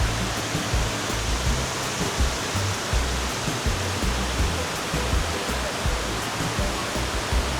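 Waterfall rushing with a steady roar of falling water, with background music carrying a shifting bass line underneath.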